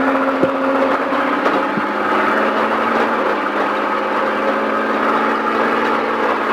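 Ford off-road race truck's engine pulling the truck away and up to speed, heard from inside the cab as a steady engine note.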